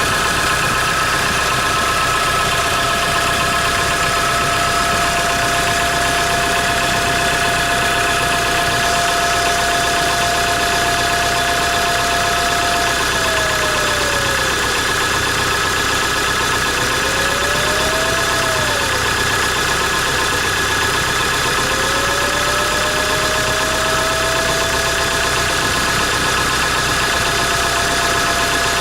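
Hyundai Grand Starex engine idling cold, with a steady whistle from the turbocharger over the engine noise. One whistle tone holds level, then dips and climbs back a few times in the second half.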